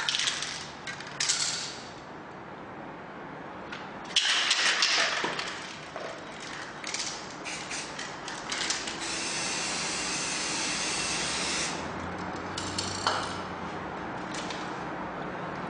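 Gloss black paint being worked onto test surfaces by hand: short scraping, hissing bursts, with one steady hiss lasting about three seconds near the middle.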